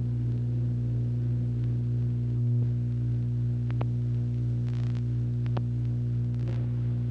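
Steady low electrical mains hum, a constant buzzing drone with a few faint clicks and crackles.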